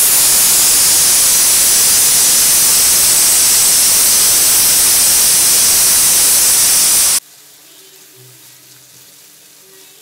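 Pressure cooker whistle: a loud, steady hiss of steam forced out under the weight valve, cutting off suddenly about seven seconds in. It is the fifth whistle, the cue that the mutton has had its cooking time and the heat goes off.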